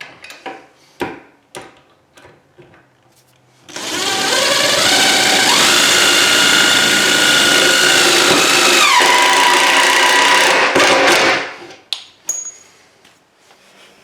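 Power drill running for about eight seconds, its motor pitch stepping up a couple of seconds in and dropping off near the end, after a few light knocks and clicks.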